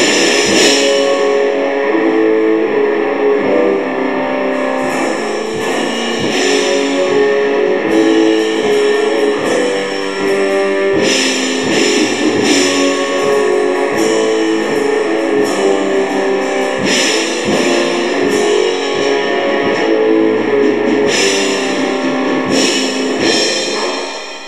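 Black metal song: distorted electric guitar riffing over a drum kit, dropping away in level near the end.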